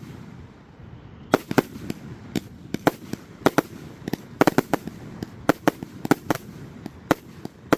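Fireworks display: after a short lull, a rapid, irregular run of sharp bangs from bursting aerial shells, some coming in quick clusters, starting about a second in.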